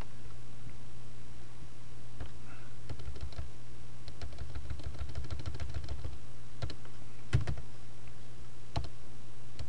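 Typing on a computer keyboard: a quick run of key clicks through the middle, then a few louder single keystrokes near the end, over a steady low hum.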